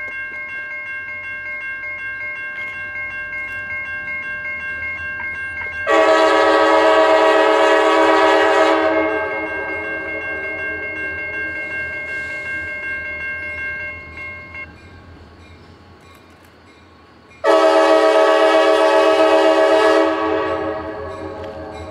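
Diesel freight locomotive's air horn blowing for a grade crossing as the train approaches. A steady horn sound runs from the start and stops about 15 seconds in. Two loud long blasts of about three seconds each come about 6 seconds in and about 17 seconds in.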